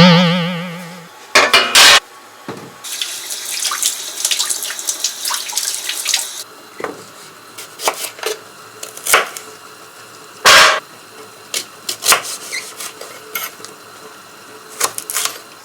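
Kitchen work: a metal pot or pan is knocked and rings with a wavering tone that fades over about a second, then a tap runs for about three seconds, followed by scattered knocks and clicks of utensils and vegetables being handled.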